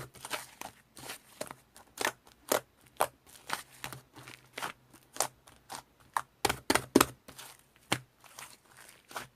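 White fluffy slime being squeezed and poked by hand, giving irregular sticky clicks and little air pops, with a louder run of pops about six and a half seconds in.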